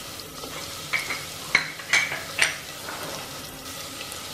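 Whole spices sizzling in hot oil in a metal pot, a steady frying hiss broken by about five sharp clicks between one and two and a half seconds in.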